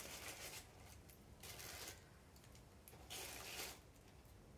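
Faint rustling and crinkling of small plastic packaging being handled, in a few short bursts.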